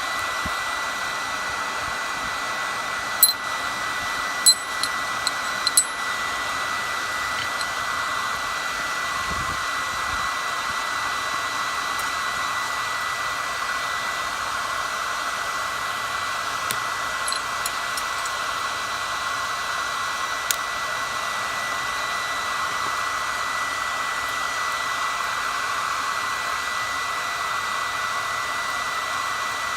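A forge running: steady rushing air with a thin constant whine, as from a forge's air blower or burner. A few sharp light clinks of metal break in, a cluster of them in the first few seconds and a couple more past the middle.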